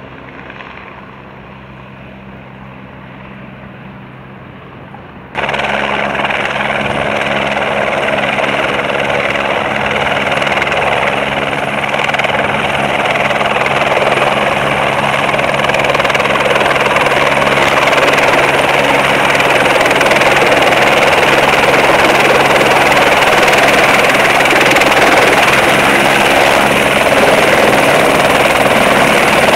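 Light single-engine helicopter's turbine and rotor running. It is distant and fairly quiet at first, then about five seconds in it turns suddenly much louder and close as the helicopter hovers down onto the helipad to land, building a little and then holding steady.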